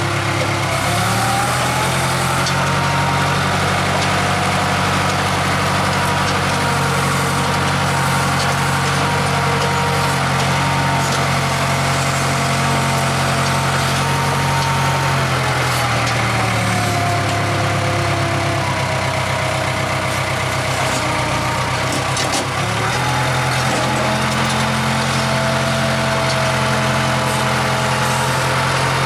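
Case 580K backhoe's diesel engine running with a higher whine that follows its speed, revving up about a second in, dropping back around the middle, and revving up again about three-quarters of the way through.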